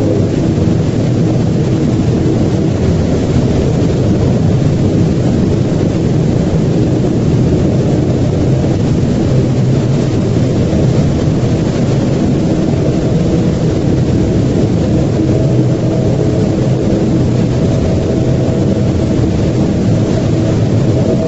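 A loud, steady low rumble, with faint held tones above it, that neither swells nor breaks.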